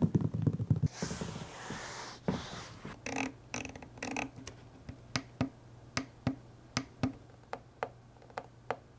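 Hands tapping and rubbing on the lid of a hard plastic carrying case. Then, from about three seconds in, a finger presses a Zunzheng monitor's front-panel buttons one after another: a run of short, crisp clicks, about two a second.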